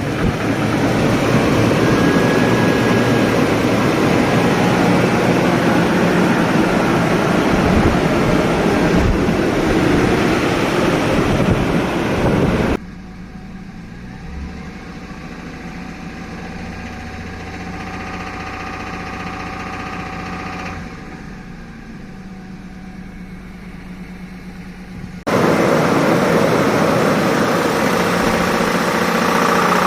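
Toyota Tundra's 1GR-FE 4.0-litre V6 engine running with a rough, noisy sound that is diagnosed as bad connecting rod bearings and crankshaft. It drops abruptly to a quieter, steady hum about thirteen seconds in and comes back loud again about twelve seconds later.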